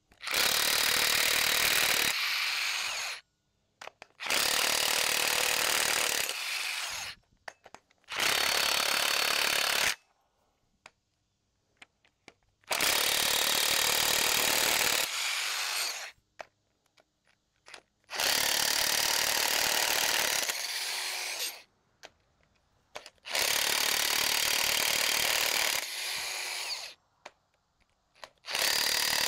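A power tool spinning bolts out of a Big Cam Cummins diesel engine in about seven runs of two to four seconds each, with short pauses between runs.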